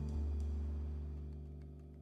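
Background music with sustained low notes, fading out steadily.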